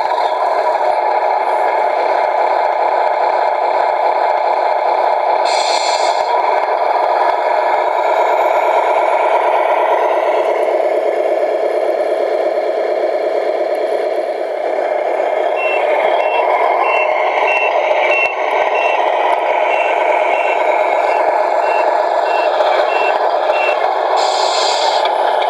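Tamiya Scania R620 RC truck's sound unit playing a simulated diesel engine running steadily through its small speaker. A little past halfway, reversing beeps start at about two a second, the sign of the truck backing up. There are brief hisses about six seconds in and near the end.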